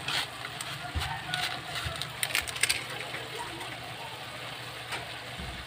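Foil seasoning sachet crinkling as it is shaken and emptied over shredded papaya in a pan, with a cluster of sharp crackles about two seconds in. A steady low hum runs underneath.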